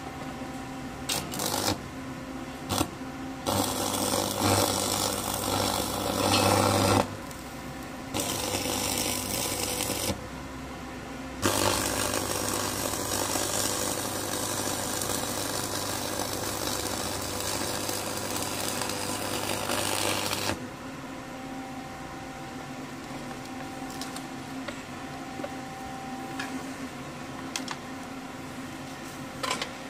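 Arc welding: an electric welding arc crackles in three bursts, a few seconds each and the last about nine seconds, with a steady low hum under each burst, and a few short clicks in between.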